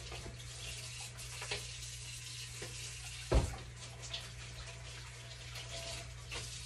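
Water running steadily from a kitchen tap, shut off near the end, with one thump about three seconds in.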